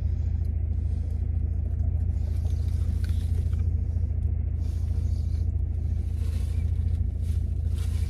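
Car engine idling, a steady low rumble heard inside the cabin, with faint chewing.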